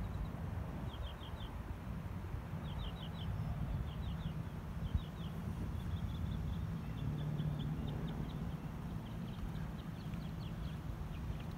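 A bird calling repeatedly in quick groups of three or four high chirps, the groups coming faster and closer together near the end, over a steady low rumble.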